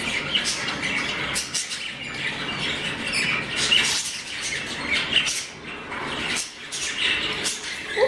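Budgerigars chirping, a rapid run of short, high calls one after another.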